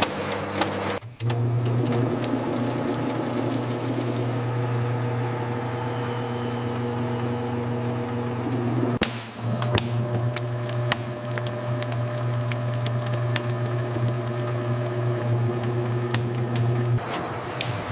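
Steady low hum of running factory machinery. It breaks off abruptly about a second in and again about nine seconds in, with a short click at the second break.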